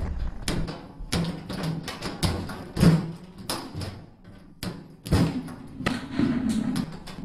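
Animation soundtrack of sound effects: quick, irregular knocks, taps and thuds, with a few short low hums.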